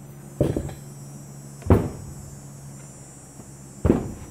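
Aluminium cylinder head being handled and set down on a workbench: three dull knocks, the loudest about two seconds in.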